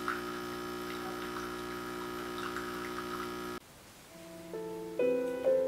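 Background music: a held chord that cuts off suddenly about three and a half seconds in, followed by soft piano notes entering one at a time.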